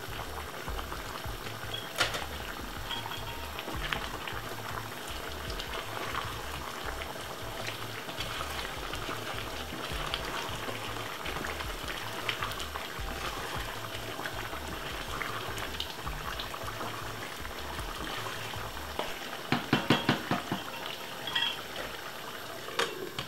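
Chicken stew simmering in an uncovered pot, a steady bubbling and sizzling crackle, as a wooden spoon stirs it. Near the end comes a quick run of sharp knocks and scrapes from the spoon against the pot.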